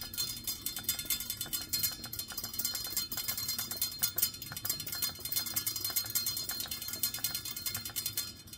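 Steam valve on a Saladmaster pot lid ticking fast and steadily as steam escapes: the rice water is at the boil.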